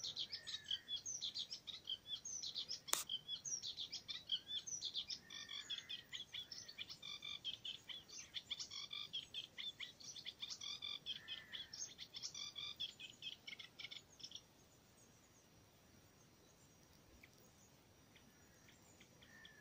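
Warbler singing close by in a reedbed: a long, fast run of chattering notes that stops about fourteen seconds in. A single sharp click about three seconds in.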